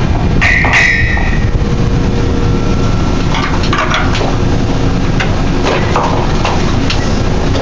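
Drilling rig floor machinery running during tripping of drill pipe: a loud steady rumble with scattered metal-on-metal clanks. A high screech lasts about a second near the start.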